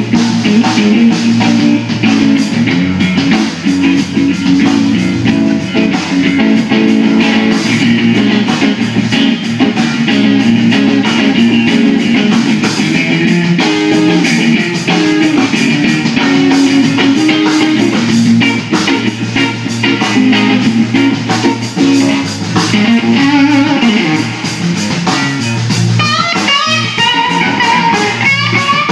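A live blues trio playing an instrumental stretch: electric guitar playing lead over bass guitar and a drum kit, with no vocals. Near the end the guitar slides and bends notes.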